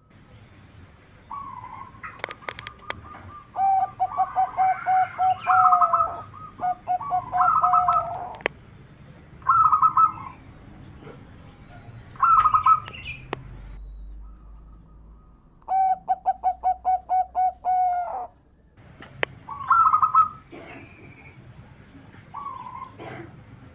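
Zebra dove (perkutut) cooing in several bouts: quick runs of short, evenly spaced low notes mixed with higher phrases, with pauses between bouts. A few sharp clicks sound between the calls.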